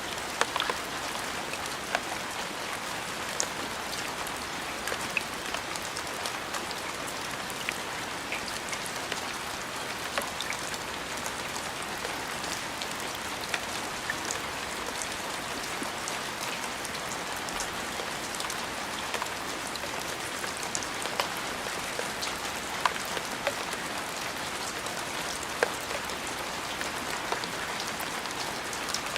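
Steady rain falling on a surface, a constant patter with individual close drops ticking sharply here and there.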